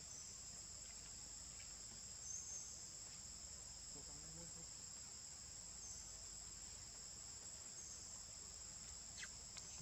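Faint, steady, high-pitched insect chorus.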